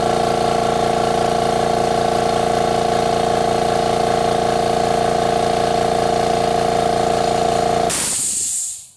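Makita MAC700 Big Bore oil-lubricated air compressor running steadily under load as it fills its tank. About eight seconds in it reaches its 130 psi cut-out: there is a short burst of air hiss as the pressure switch trips, and the motor winds down to a stop.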